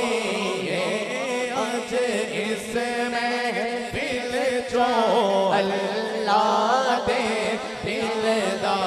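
A male voice singing a naat through a microphone and PA, the melody bending and gliding in long held lines over a steadier chanted vocal background.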